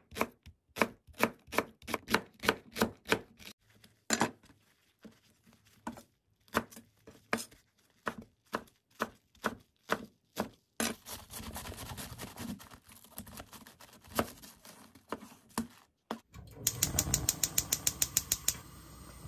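Kitchen knife chopping green onion and then perilla leaves on a wooden cutting board, steady strokes about three a second at first, then sparser. Near the end a gas stove burner's igniter ticks rapidly for about two seconds and the burner catches, leaving a steady hiss.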